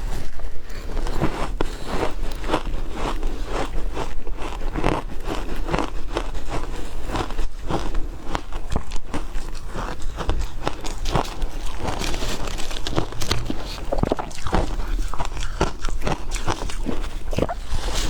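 A person biting and chewing shaved ice: a steady run of crisp crunches, several a second.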